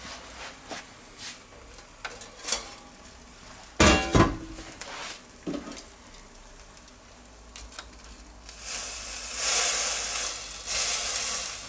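Metal clatter of a stainless steel bowl, used as a lid, being lifted off the wire rack of an electric table grill about four seconds in, with lighter clicks before and after. Near the end a hiss of bacon sizzling on the grill rises for about three seconds.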